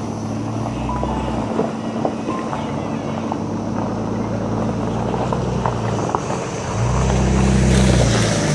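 Jeep Cherokee SUV driving slowly over storm debris toward the camera, its engine a steady low hum with scattered small clicks. The engine sound grows louder, rising and then falling, as it passes close by near the end.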